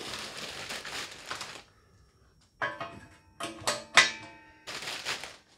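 Plastic bag crinkling as parts are pulled out, then loose metal hardware and a caster wheel clinking and clanking with short metallic ringing, the loudest clank about four seconds in, followed by more bag rustling.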